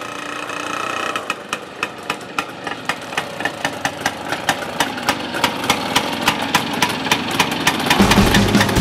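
Small vintage two-stroke motorcycles, a Jawa 353 and a WSK M06 among them, riding up slowly at low revs, their engines popping in an even beat of about four a second that grows louder as they approach. Music comes in near the end.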